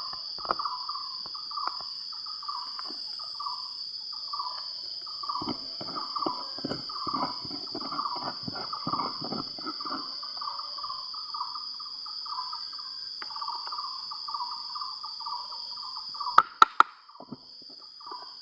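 Steady high insect drone under an unidentified repeating call, pulsing about twice a second in a middle pitch: the strange sound the gold panners say they only noticed on playback. A stretch of rough knocks and scrapes runs through the middle, and a few sharp clicks come near the end.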